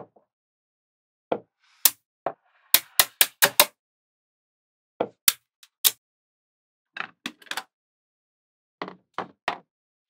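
Small magnetic balls clicking sharply into place, in short groups with silence between, including a quick run of about five clicks around three seconds in.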